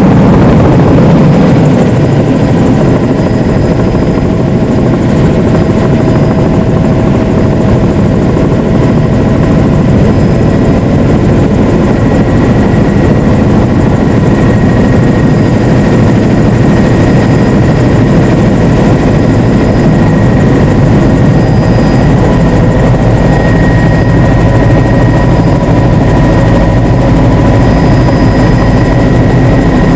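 Helicopter in flight, heard loud from inside its cabin: a dense, steady rotor and engine noise with a thin, unchanging whine held above it.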